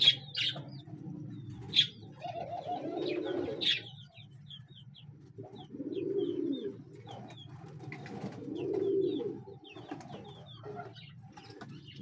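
Pigeons cooing, three drawn-out low coos a few seconds apart, with small birds chirping high and thin over them. A couple of sharp clicks in the first two seconds as soil is worked by hand.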